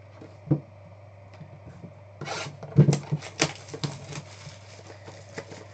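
Hands handling trading card boxes and packs: a single knock about half a second in, then rustling and a run of sharp clicks of cardboard and foil wrapper from about two seconds in.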